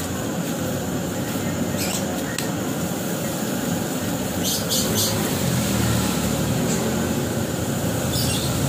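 Granulated sugar poured in a stream into a large aluminium pot of water heating on a stove, over a steady hiss, with a few short light ticks.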